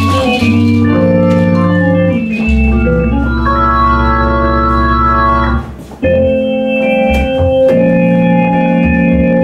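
Small jazz band playing live, led by a stage keyboard on an organ sound holding long sustained chords over a bass line, with guitar, saxophone and drums. The sound dips briefly about six seconds in, then a new chord comes in.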